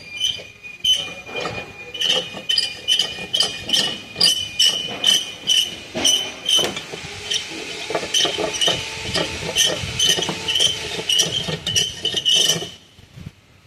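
Metal hand tools clinking against metal engine parts: a steady run of sharp, ringing clinks, about two to three a second, that stops abruptly near the end.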